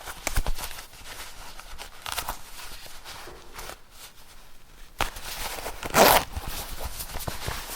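Zipper being worked in short strokes, its teeth clicking, with a quieter pause partway through and one fast, loud zip about six seconds in.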